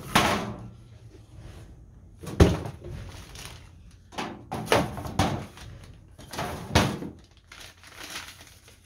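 Cardboard packaging being handled, with about half a dozen sharp thunks and knocks; the first, just after the start, comes as the emptied cardboard box is tossed aside.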